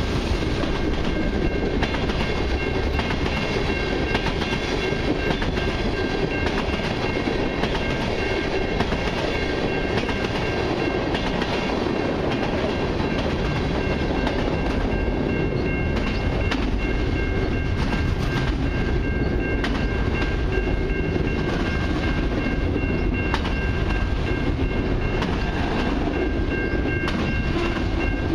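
A long freight train's cars rolling past at a steady speed: a continuous rumble of steel wheels on rail with scattered clicks, and a thin, steady high ringing tone over it.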